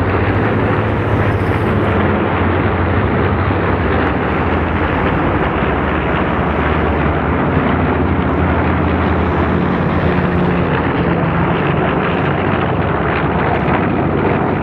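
A B-25 Mitchell bomber's twin Wright R-2600 radial piston engines running in a loud, steady, deep rumble as it flies by.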